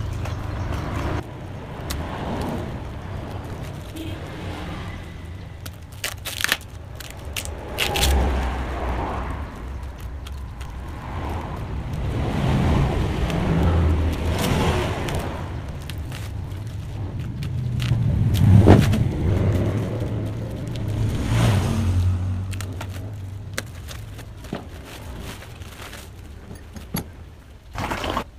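Motor vehicle engine noise that swells and fades several times, loudest about two-thirds of the way through, with scattered clicks and scrapes.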